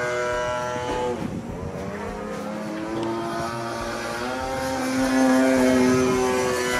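26cc two-stroke gas engine of a 70-inch Extra 260 RC aerobatic plane in flight. Its note dips in pitch about a second in, climbs again, and gets louder about five seconds in.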